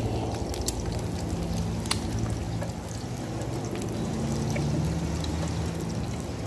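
An egg frying in oil in a pan: a steady sizzle with a few sharp pops of spattering oil.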